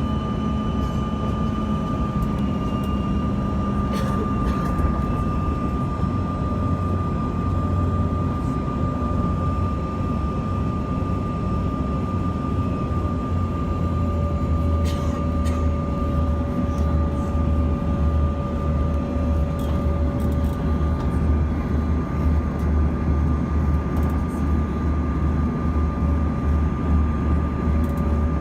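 Cabin noise inside a Bombardier CRJ-200 on approach: the rear-mounted GE CF34 turbofans' steady drone with a deep rumble and a steady whining tone, a second, lower tone joining about halfway through. A few faint clicks and rattles sound over it.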